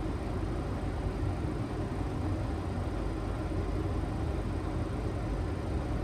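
Steady flight-deck noise of a Boeing 737-800 on final approach, with gear down and flaps 30 set: an even rush of airflow and engine noise, heaviest in the low range.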